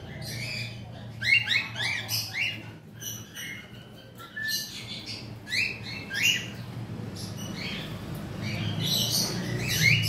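Cockatiels chirping and calling in a string of short calls, some of them loud and close, over a steady low hum.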